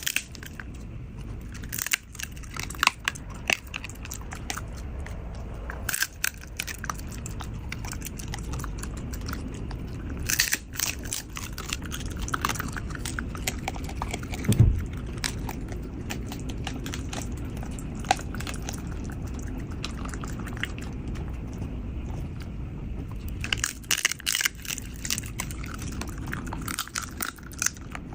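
A Corgi-mix dog eating ice cream: irregular bursts of biting, chewing and wet crunching sounds, some sharp and loud, with quieter stretches between, over a steady low background noise.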